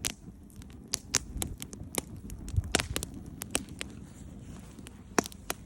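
Wood bonfire crackling, with irregular sharp pops of varying loudness over a low rumble.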